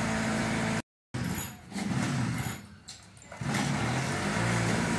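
A vehicle engine running steadily, a low hum with its overtones. The sound cuts out for a moment about a second in and again near the end, and sinks low for a second or so in the middle.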